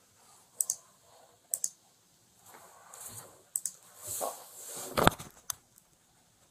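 Sharp clicks of computer controls being worked to end a video call, several in quick pairs, with soft rustling; a heavier thump about five seconds in.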